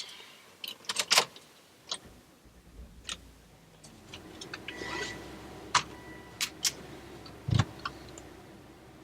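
A series of sharp clicks and knocks, loudest about a second in and again about seven and a half seconds in, over a low steady hum that comes in about two seconds in.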